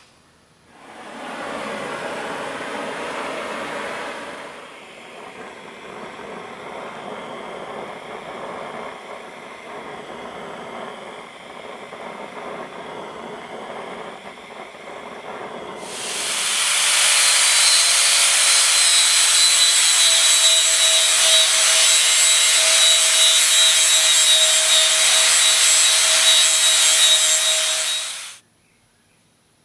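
A gas torch runs with a steady rushing flame as it heats a small steel scythe anvil. About sixteen seconds in, a handheld angle grinder starts up, much louder, with a steady whine over the grinding noise as the disc dresses the anvil's steel face, and cuts off near the end. Before the torch, there are a few seconds of a louder rush of noise.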